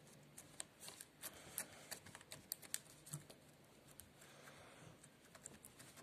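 Faint, irregular little clicks and pops from fingers pressing and poking glittery slime with pearl beads mixed in. The clicks come thickest in the first few seconds and thin out after.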